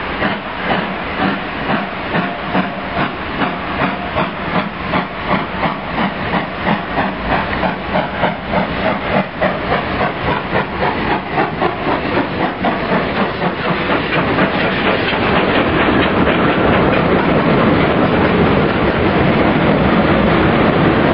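FS class 625 steam locomotive working its train, its exhaust chuffing in an even rhythm of about two beats a second that gradually quickens, over hissing steam. From about fourteen seconds in, the chuffs give way to the steady rumble and clatter of its carriages rolling past.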